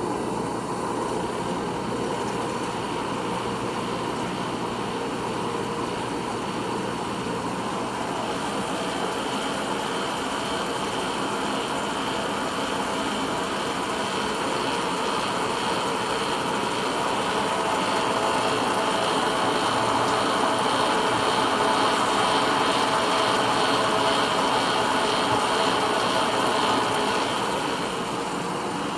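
Pratt & Whitney lathe running under three-phase power, a steady mechanical whir of its gear head. It gets louder about halfway through, then drops back shortly before the end.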